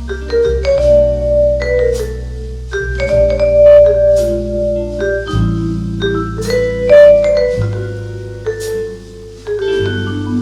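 Instrumental jazz break played back through ATC SCM 11 bookshelf speakers: sustained melodic notes over held bass notes, with regular light percussion strokes and no singing.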